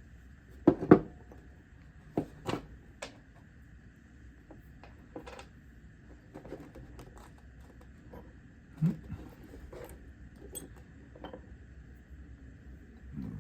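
Metal parts of a Craftsman 3/8 ratchet clicking and clinking as it is taken apart by hand: scattered sharp taps and clicks, the loudest two about a second in, with a duller knock near the end.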